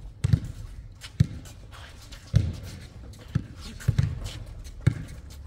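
A basketball being dribbled on an outdoor hard court: about six low, sharp bounces, roughly one a second.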